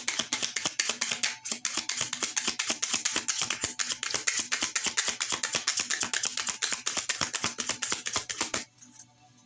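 Tarot deck being shuffled by hand: a fast, even run of card clicks, about ten a second, that stops about a second before the end.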